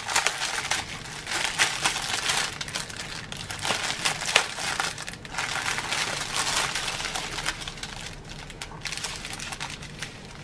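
Clear plastic bag and strips of small plastic drill packets crinkling as they are handled and drawn out of the bag. The crinkling thins out near the end.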